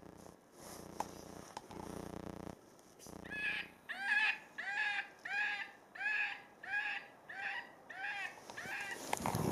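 FoxPro electronic predator caller playing an eastern cottontail distress recording: a run of about ten wailing cries, each rising then falling in pitch, repeated roughly every 0.6 s from about three seconds in. A low steady hum with a few clicks comes before the cries.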